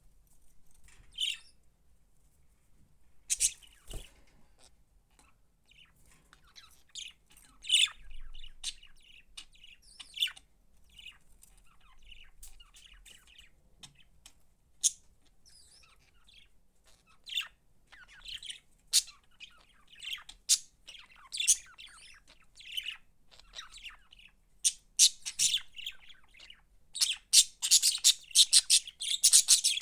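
Pet budgerigars chirping in short, scattered high calls that come thick and fast near the end.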